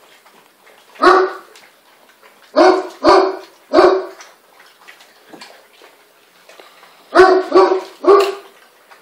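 Great Dane puppies barking: short, sharp, fairly high-pitched barks, four in the first half and three more in a quick run near the end.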